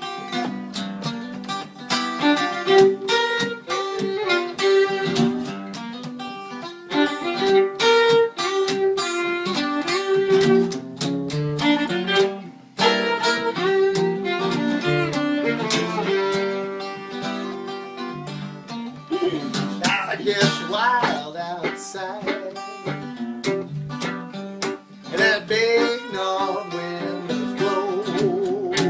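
Fiddle and archtop acoustic guitar playing together in an instrumental break of a song. The fiddle is bowed with vibrato over the picked guitar.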